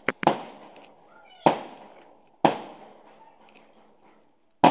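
Aerial fireworks bursting with sharp bangs: two in quick succession at the start, then three more spread over the next few seconds, each trailing off as it echoes away.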